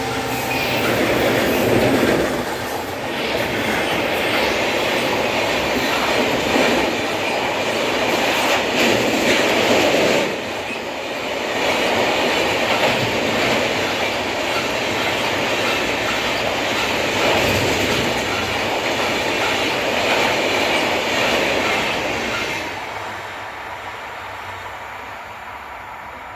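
Passenger express coaches rushing past at speed, their wheels clattering over the rail joints in a loud, steady rumble that swells and dips, fading away near the end as the train moves off.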